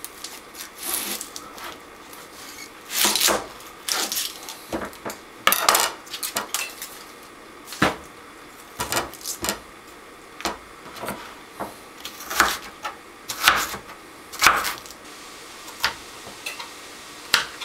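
A kitchen knife chopping on a cutting board as an onion is sliced and garlic cloves are cut: irregular knocks and taps, with a few longer scraping strokes.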